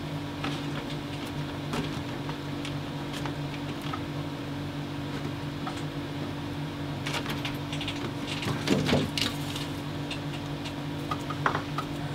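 Faint clicks and rustles of thin cables being bent and fed into a solar charge controller's terminals by hand, with a denser run of clicks about two-thirds of the way through, over a steady low hum.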